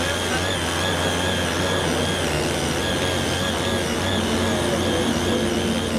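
Small CY80 tiller's 78.5 cc air-cooled two-stroke engine running steadily while tilling, a constant drone with a slightly wavering higher whine.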